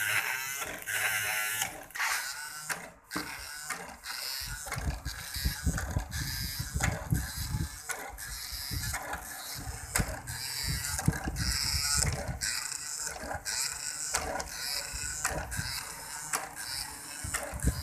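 A small battery-powered DC motor drives a crank linkage that swings a toy boat swing built of wooden rulers. The wooden linkage and frame click and rattle in a steady rhythm, roughly two clicks a second. A heavier low rattle joins about four seconds in.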